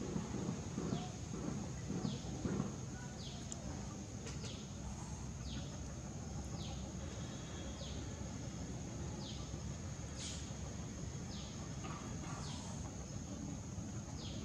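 Outdoor ambience: a steady high-pitched drone with a short falling call repeated about every 0.7 seconds, over a low steady rumble. A few louder rustles in the first three seconds.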